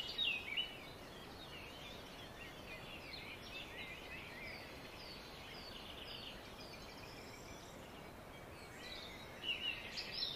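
Small birds chirping and calling in a busy chorus of short, high, falling notes. The chorus is louder in the first second and again near the end, over a faint steady background hiss.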